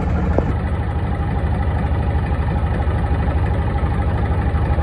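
Yamaha marine engine idling with a steady, low, evenly pulsing rumble.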